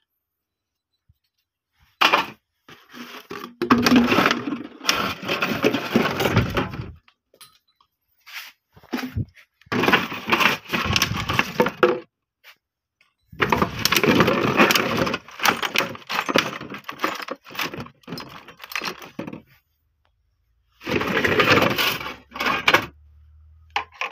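Rummaging through a pile of scrap: empty plastic bottles crackling and pieces of old iron clanking as they are pushed aside and picked out, in several bursts of clatter with short pauses.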